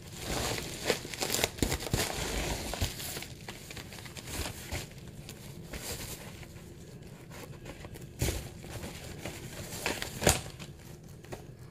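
Pink plastic bubble mailer being opened and handled, irregular crinkling and rustling. It is busiest in the first few seconds, with a sharper crackle a little past ten seconds.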